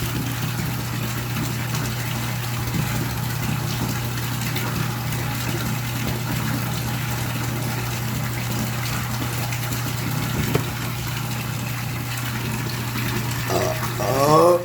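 A person lets out a loud burp about a second long near the end, its pitch sliding, over a steady low hum with rushing noise.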